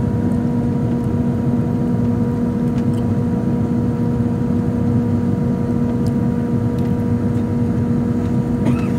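Steady cabin noise of a jet airliner on its descent: a constant engine drone with even, rushing airflow, heard from inside the cabin at a window seat.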